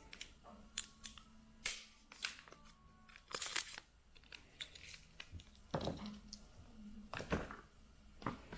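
Handling of an Apple Pencil and its cardboard box and inner tray, giving irregular light taps, clicks and short rustles of cardboard and paper.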